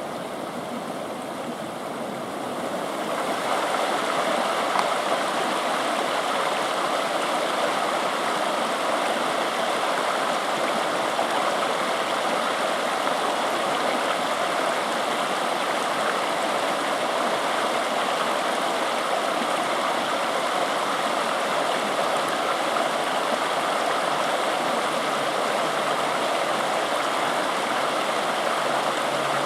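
Mountain stream running: a steady rush of flowing water that swells up over the first few seconds, then holds level.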